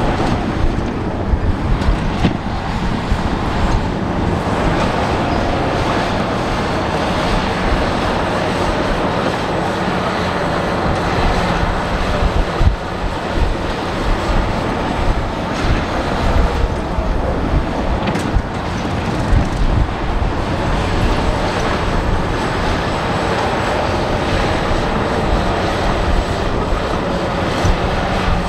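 Heavy diesel earthmoving machinery working: crawler bulldozer engines running under load with a steady rumble and an irregular clatter.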